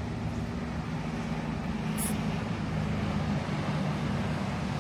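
Steady low outdoor rumble with a faint continuous hum, with no single clear event standing out.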